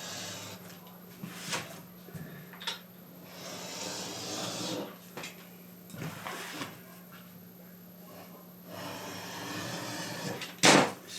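Cutter blade drawn through leather, trimming the excess lining from the edges in a few long scratchy cuts. Light clicks and knocks of handling come between the cuts, with a louder knock near the end.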